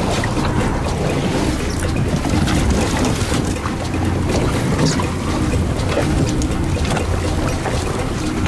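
Sport-fishing charter boat's engine running with a steady low drone, with wind noise on the microphone and the sea washing around the boat.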